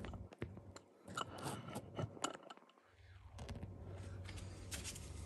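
Handling noise from the camera being moved and set back in place: scattered clicks and short rustles, with the low background hum cutting out twice.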